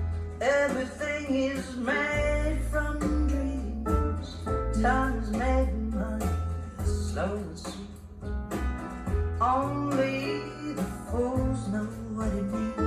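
Recorded song played back: a voice singing over guitar and a steady bass line.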